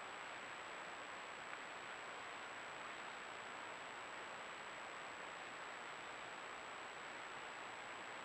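Steady hiss of a trail camera's microphone and electronics, with a thin constant high whine above it.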